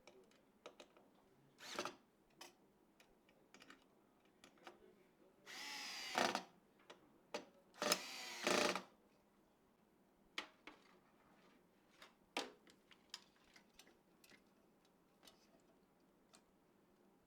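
Two brief buzzing runs, each under a second, a couple of seconds apart, from a small tool or fastener being worked on the PC parts. Scattered light clicks and taps of parts being handled come before and after.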